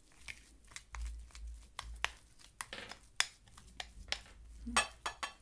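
Metal spoon stirring and scraping a thick paste in a ceramic bowl, with irregular clicks and scrapes of the spoon against the bowl.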